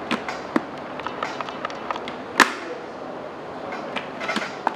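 Small plastic clicks and taps from an Arai RX-7x helmet's visor being fitted onto its side pivot mechanism, with a sharper click about two and a half seconds in and another near the end.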